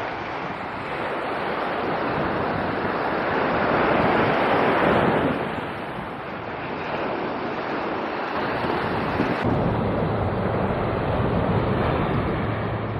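Sea waves washing on a beach, with wind buffeting the microphone; the surf swells loudest about four to five seconds in. About two-thirds of the way through, a steady low hum joins the noise.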